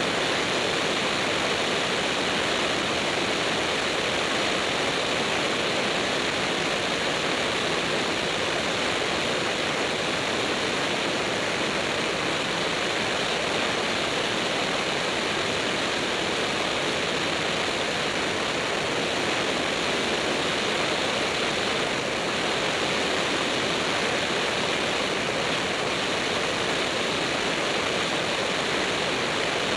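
Light propeller aircraft in steady flight, its engine, propeller and airflow heard inside the cabin as an even, unbroken rushing noise with no distinct tones.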